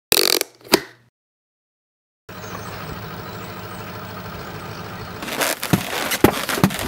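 A brief noisy sound effect and a sharp click, a pause, then a steady outdoor hum; from about five seconds in, sharp knocks about twice a second as inline skates strike concrete steps while a skater walks up stairs in them.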